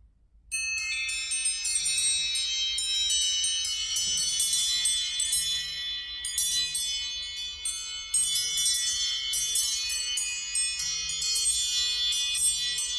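iPhone ringtone: a busy run of high, bell-like chiming notes ringing over one another. It starts about half a second in, with a faint low note pulsing underneath.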